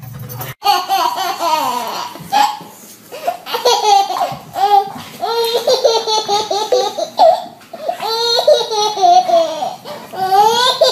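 A baby laughing in repeated bursts, each laugh rising and falling in pitch.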